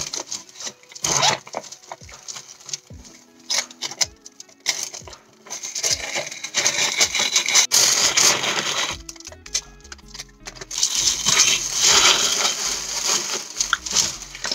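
Tissue paper rustling and crinkling as a wrapped gift is unwrapped by hand, loudest in two long spells in the middle and near the end, with lighter handling noises before.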